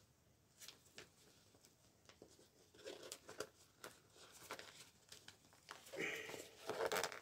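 Faint rustling and crinkling of a quilted silver thermal windscreen mat being handled and folded, with a few small clicks early on and the loudest rustles near the end.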